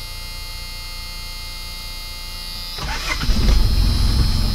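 1984 Ford Tempo's four-cylinder diesel engine cold-starting after the glow plugs have pre-heated: a steady hum, then about three seconds in a brief crank and the engine fires right up and settles into a steady idle around 1,000 rpm.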